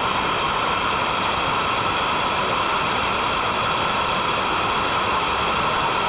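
Steady, loud rush of a waterfall close to the microphone.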